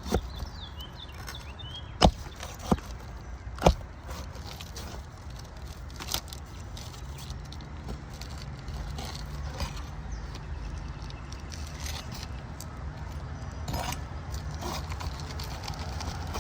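Roof snake shingle-removal tool working under asphalt shingles: sharp metallic clicks and knocks, three loud ones within about two seconds early on and a few fainter ones later, over a steady low rumble.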